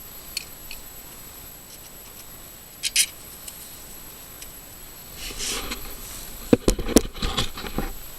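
Hand tools and metal parts on a snowblower engine as the carburetor is unbolted and worked off. A few light metal clicks come first, then a scrape about five seconds in, then a quick run of sharp knocks and clatters near the end.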